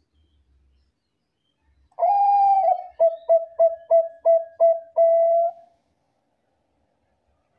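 A Thai-bred 'bangkok' zebra dove (perkutut) cooing its full song loudly: one longer opening coo, a quick run of about six short clipped coos, then a drawn-out final coo.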